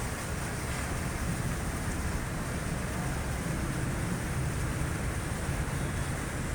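Steady background noise, a low rumble with a fainter hiss above it, with no barking.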